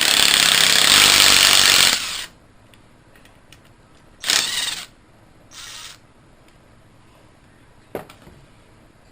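Power impact wrench run in bursts, loosening the rocker-arm fasteners on a Kohler engine: one long burst of about two seconds, then two short ones, and a single click near the end.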